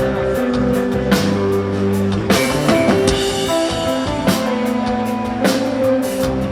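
Live rock band playing: electric guitar and bass holding long notes over a drum kit, with cymbal hits about once a second.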